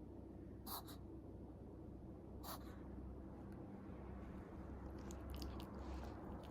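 Faint short clicking mouth and nose noises from a chihuahua: two single clicks in the first few seconds, then a quick run of them near the end.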